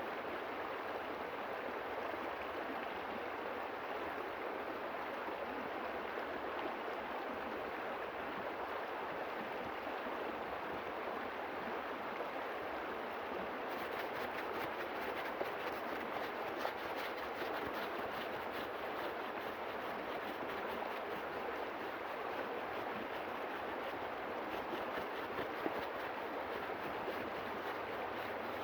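River water flowing and rushing steadily. About halfway through, a fine, rapid high crackle joins the flow.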